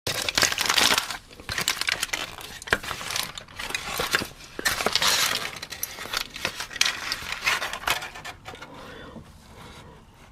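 Crisp crackling and crunching in irregular bursts, with sharp little clicks, loudest about a second in and again about five seconds in, then dying down.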